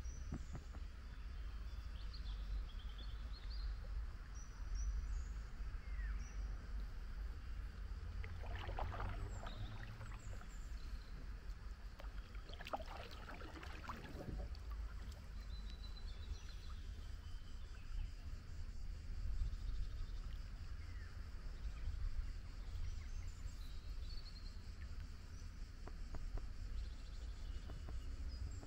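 Kayak paddles dipping and swishing through river water, with two louder swells of water noise near the middle, over a steady low rumble. Small birds chirp now and then from the banks.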